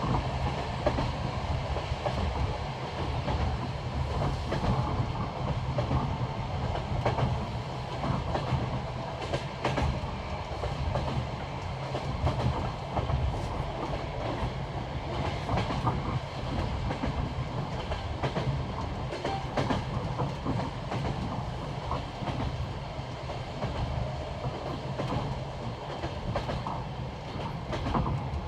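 Passenger train carriage wheels clicking over the rail joints of old jointed (bolted) track: the classic clickety-clack, repeated knocks over a steady low rumble of the moving carriage.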